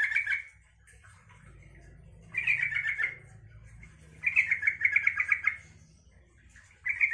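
Yellow-vented bulbul singing: four short phrases of quick repeated notes, the longest lasting about a second and a half near the middle, the last cut short at the end.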